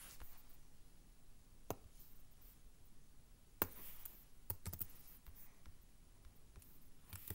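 Faint computer input clicks from a Chromebook's trackpad and keys as a command is selected and copied. There is a single click about two seconds in, another near the middle, a quick run of three or four just after, and one more near the end.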